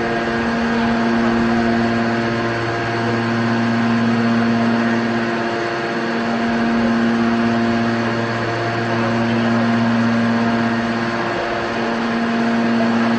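Scrap metal baler's hydraulic power unit running with a steady hum that swells and eases about every three seconds.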